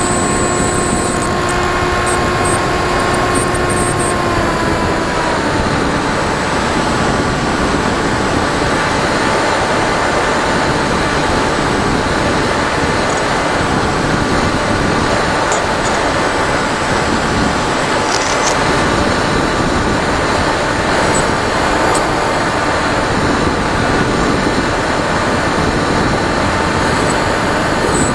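FPV model airplane's motor and propeller heard from the onboard camera, a steady whine that drops in pitch about four to five seconds in as the throttle is eased back, then holds steady. A constant rush of wind over the airframe runs underneath.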